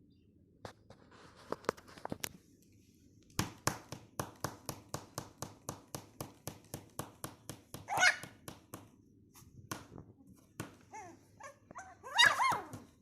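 Newborn Pomeranian puppies squealing, two high-pitched cries about eight and twelve seconds in, the second the loudest. Between them runs a steady series of small clicks, about three a second.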